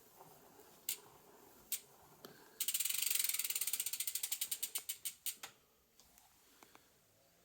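Ratcheting clicks from the drivetrain of a bike with a 12-speed Pinion C1.12 gearbox. A few single clicks come first, then a fast, loud run of ratchet clicks starts about two and a half seconds in and slows down until it stops about three seconds later.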